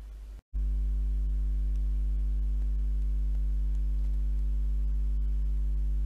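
A steady low electrical hum, like a mains buzz with a string of overtones, starting abruptly about half a second in after a brief gap and holding at an even level.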